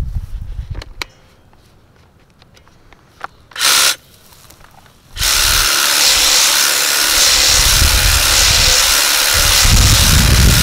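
Makita DUH602 cordless hedge trimmer, with its 600 mm blade: a short burst a little after three seconds in, then from about five seconds in it runs steadily as the blade cuts through a leafy hedge.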